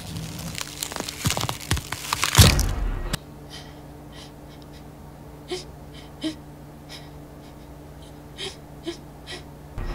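A woman gasping and breathing in fright, with a loud sudden jolt about two and a half seconds in. After it, a steady low hum with a few short, faint sounds.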